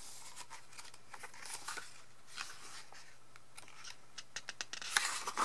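Glossy photobook pages being handled and turned by hand: soft paper rustles and small ticks, with a louder page turn about five seconds in.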